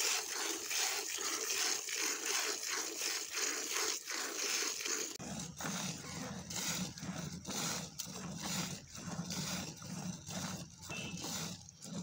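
Hand-milking a cow into a stainless steel milk can: rhythmic squirts of milk hissing into the milk already in the can, about two squirts a second. A low steady hum joins about five seconds in.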